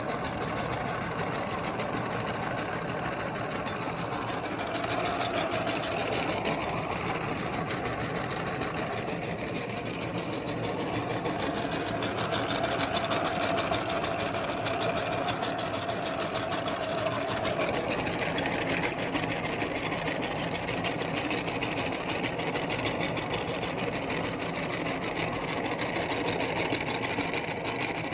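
Electric meat grinder running steadily, its motor turning the auger as it works bubble gum through, with a faint whine rising in the middle stretch.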